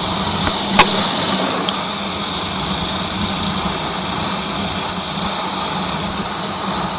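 Honda XR 250 Tornado single-cylinder motorcycle engine running steadily at cruising speed, with wind rushing over the microphone. One sharp click about a second in.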